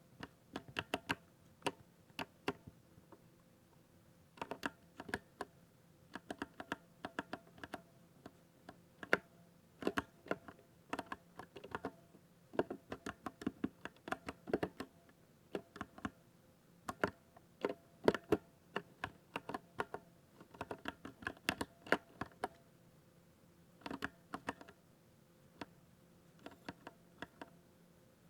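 Typing on a 60% mechanical keyboard with silver linear switches: irregular runs of quick keystrokes with short pauses between them.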